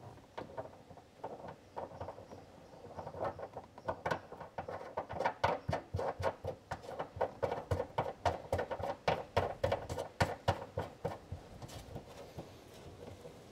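Plastic nut being spun by hand onto a thru-hull skin fitting under an aluminium boat's anchor well: a rapid run of light clicks, about three to four a second, loudest in the middle and dying away near the end.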